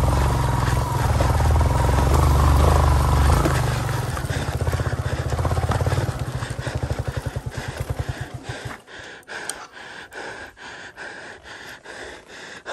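Motorcycle engine running steadily, then its beats slow and separate until it stops about nine seconds in, followed by faint clicks. The engine is struggling and failing to pull the loaded bike up a steep, rocky off-road climb.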